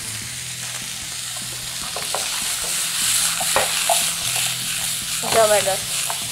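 Mixed vegetables sizzling in hot oil in a frying pan as they are tossed and stirred in a sauté. The sizzle grows louder about halfway through, with a few light clicks of food and pan.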